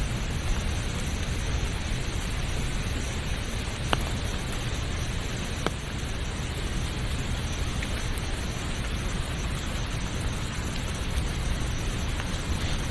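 Steady hiss of rain and running water with a deep low rumble underneath, and two faint ticks about four and six seconds in.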